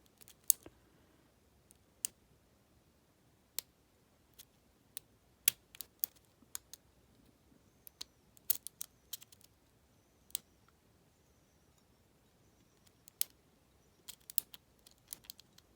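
Lock pick and tension wrench working in the keyway of an Abus 74/40 six-pin padlock: scattered, irregular sharp metal clicks and ticks, some single and some in quick little clusters, with quiet between them.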